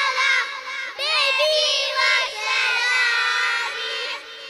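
A small group of young children singing together into microphones, with short breaks between phrases just before a second in and again near the end.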